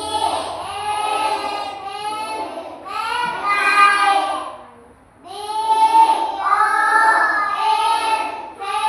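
A child's voice chanting aloud in a sing-song way, spelling and reading out vocabulary words, with a short break about five seconds in.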